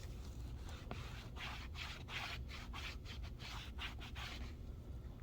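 A cloth rag rubbing over a Chromebook screen in quick back-and-forth strokes, about three a second, which stop shortly before the end.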